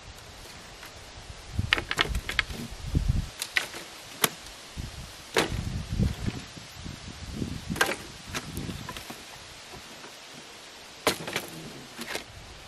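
Dry dead branches being handled and loaded into a woven pack basket: irregular sharp cracks and clacks of twigs snapping and wood knocking together, over low rustling and handling thumps.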